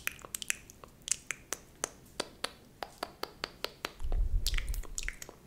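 A run of sharp, close-miked ASMR clicks, two or three a second, made in time with pinching hand gestures that act out plucking eyebrow hairs. A low rumble comes in about four seconds in and lasts about a second.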